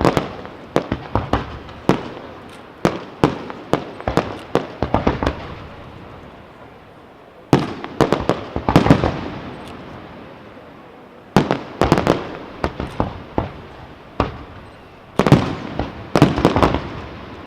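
Aerial fireworks display: rapid volleys of sharp shell bursts in about five clusters, each a second or two long. Short lulls between the volleys let the reports die away.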